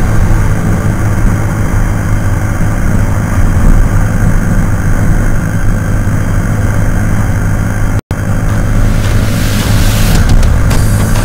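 Yamaha SZ motorcycle's single-cylinder engine, bored out to 200cc, running steadily at cruising speed, with heavy wind noise on the action camera's microphone. The sound cuts out briefly about eight seconds in, and music with drum hits comes in near the end.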